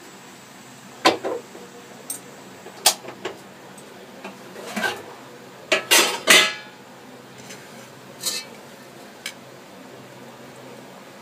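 Stainless steel kitchenware clinking and knocking: a few separate sharp clanks, with the loudest cluster of knocks about six seconds in.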